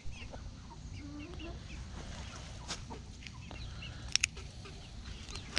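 Chickens clucking softly now and then, with a couple of sharp clicks a little after four seconds in.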